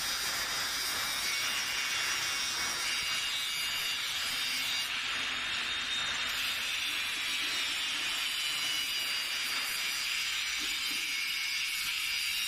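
Handheld angle grinder grinding down the weld seam on a metal sphere: a steady, unbroken grinding hiss with a thin high whine through it.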